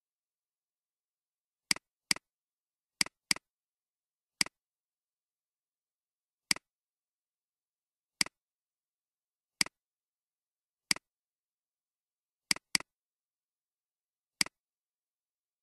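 Computer mouse clicks, about a dozen at uneven intervals, some in quick pairs, with dead silence between them.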